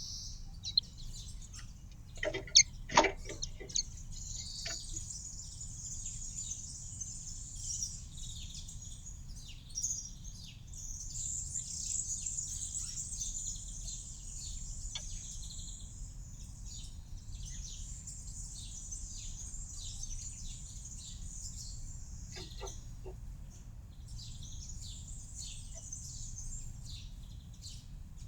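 Small songbirds chirping and twittering continuously in a dense, high-pitched chorus. A few short sharp knocks stand out about two to three seconds in and again near 22 seconds.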